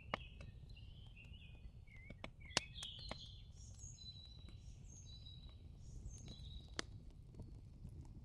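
Faint birds chirping with short whistles, over a low rumble, with a few sharp clicks.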